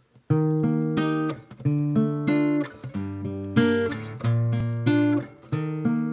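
Solo acoustic guitar playing a plucked chord pattern, the notes ringing into one another, starting about a third of a second in.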